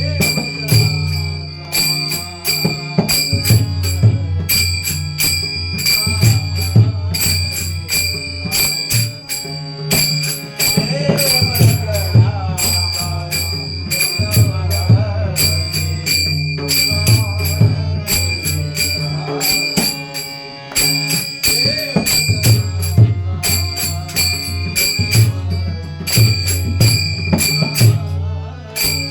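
Varkari bhajan music: small hand cymbals (taal) clashing in a steady, even rhythm and ringing, over a drum and a sustained low drone, with a voice singing through the middle part.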